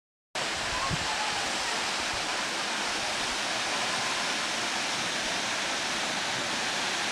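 Steady rushing of a waterfall dropping into a gorge, an even wash of water noise that cuts in suddenly just after the start.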